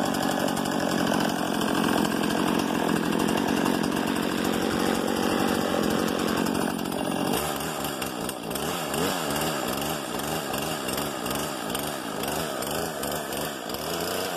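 Husqvarna 120 Mark II chainsaw's two-stroke engine running on its first start-up: at high speed at first, then about seven seconds in it drops abruptly to a lower, unsteady speed whose pitch wavers up and down.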